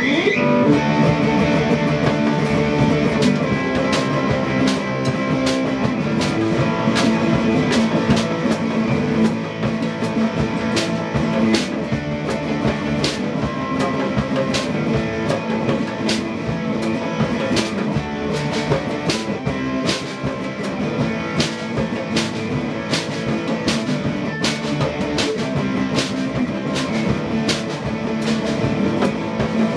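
Electric guitar and drum kit playing rock music together, the guitar holding sustained chords over a steady drum beat.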